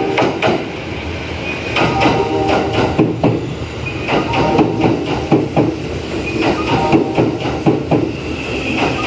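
Kintetsu 80000 series Hinotori limited express train running along the platform, with a steady rumble and rapid clusters of wheel clicks over the rail joints.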